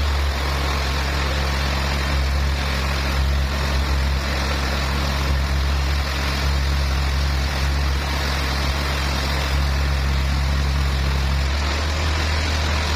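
Heavy truck engine running steadily with a low drone. One of its low tones drops out near the end.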